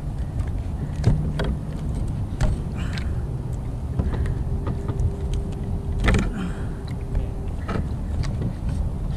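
Steady low rumble of wind and water around a kayak, with scattered small clicks and knocks as a dull knife is worked through a halibut's gills to bleed it.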